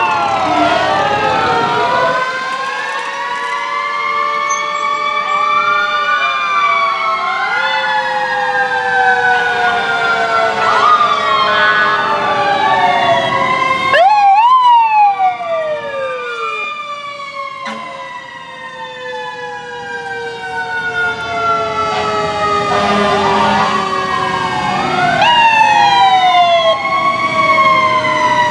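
Several fire apparatus sirens sounding at once, their rising and falling wails overlapping. The sound eases off somewhat past the middle, then builds again near the end.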